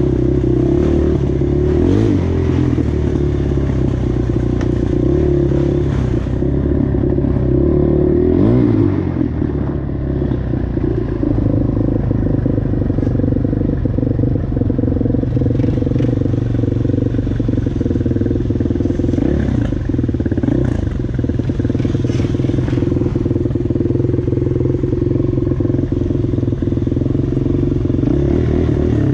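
ATV engine running steadily, its pitch swinging briefly about two seconds in and again around eight to nine seconds in, with some clatter over it.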